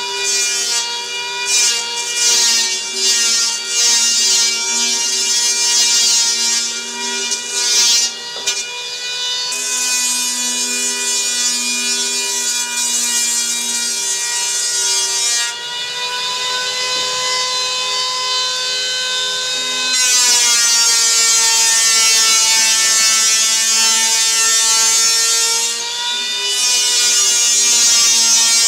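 Electric hand planer running continuously as it skins the deck of a foam surfboard blank down to thickness. A steady motor whine shifts in pitch a few times, under a hissing rush of foam being shaved off that comes and goes with the passes.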